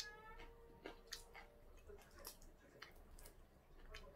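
Faint, scattered clicks and crackles of eating: the shell being peeled off a cooked shrimp by hand, along with chewing.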